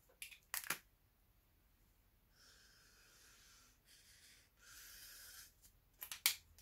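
Felt-tip marker drawing lines on paper: a soft, scratchy squeak in three strokes, from a little over two seconds in until about five and a half seconds in. Brief sharp clicks about half a second in and again about six seconds in, the loudest sounds here.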